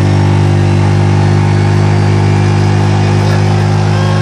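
ATV engine running hard at road speed, a loud steady drone held at one pitch.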